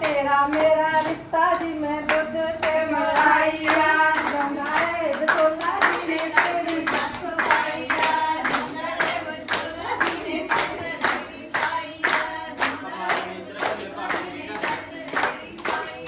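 Singing accompanied by steady rhythmic hand clapping, about two claps a second; the claps stand out more toward the end.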